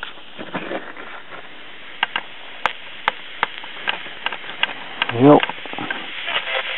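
Drexel AM/FM transistor radio's speaker hissing with static while its controls are worked, broken by sharp crackles and pops typical of its dirty, scratchy volume control. About five seconds in, a short loud rising tone sweeps past as a signal comes through.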